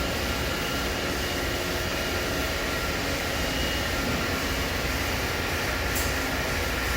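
Steady hum and hiss of powered-up industrial machinery, a CNC Swiss lathe and its auxiliary units idling, with a low drone and a couple of faint, steady whining tones.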